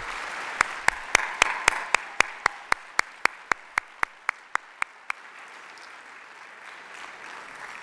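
Audience applauding, with one person's claps close to the podium microphone standing out sharply at about four a second until about five seconds in; the applause then dies down.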